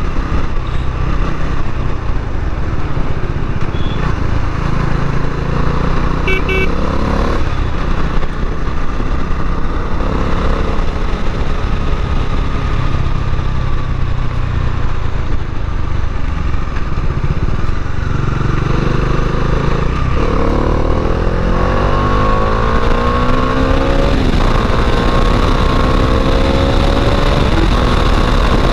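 Bajaj Dominar 400's single-cylinder engine running under way, heard from the bike; in the last third its pitch rises again and again as it accelerates. A brief high beep about six seconds in.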